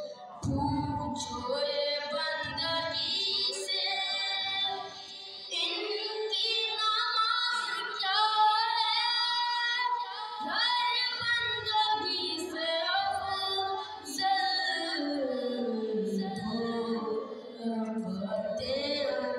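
A boy's voice chanting a devotional Urdu kalaam in praise of Ali, solo, in long wavering melodic lines with short breaths between phrases. A few low thumps sound underneath now and then.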